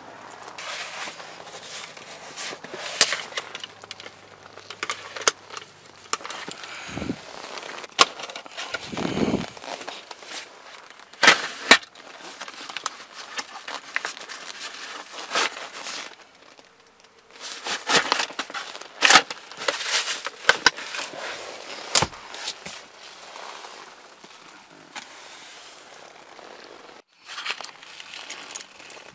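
Handling noise inside a car cabin: scattered clicks, rustling and knocks as things are moved about and the camera is carried around, with a couple of dull thumps.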